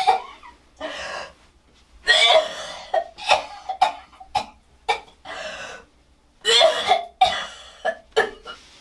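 A woman coughing in repeated harsh fits, short sharp coughs in clusters with brief pauses between, sick with a sinus infection.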